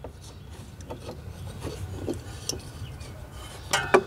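Razor blade scraping old gasket material off the metal thermostat mounting surface of a Jeep 4.0L inline-six, in short irregular rasping strokes.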